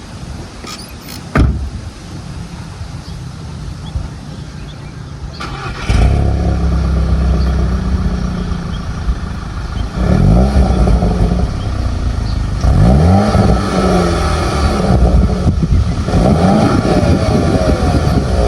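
A car engine starts about six seconds in and runs loudly. It is then revved three times, each rev rising and falling back, with a sharp click heard about a second in.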